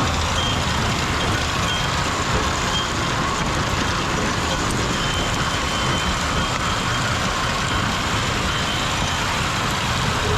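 John Deere 7210R tractor's six-cylinder diesel running steadily under load, pulling a root-removal machine whose conveyor carries roots and dirt. Faint short high beeps come now and then.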